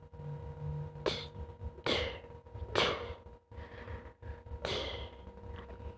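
Handfuls of soil dropped into the bed of a plastic toy dump truck: four short pours, the first three about a second apart and the last after a longer gap, over a faint steady hum.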